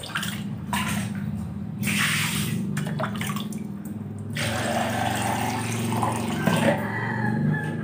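Water from a tap running and splashing in spells that stop and start, the longest near the end, over a steady low hum.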